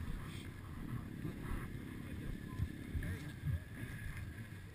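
Wind rumbling on the microphone, an uneven low buffeting noise.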